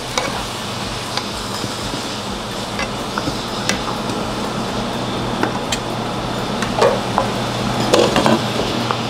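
Chicken, tomatoes and bell peppers sizzling in a frying pan as a wooden spatula stirs them, with scattered taps and scrapes of the spatula on the pan. A few louder clinks come near the end.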